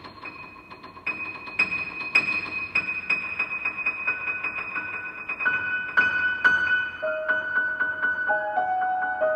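Bösendorfer grand piano playing quick, evenly repeated high notes, about four a second. The notes get louder about a second in, and lower notes join near the end.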